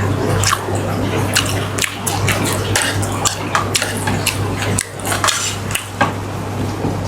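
Metal utensils clinking and scraping against a pot and dishes in a string of short, irregular knocks, over a steady low hum.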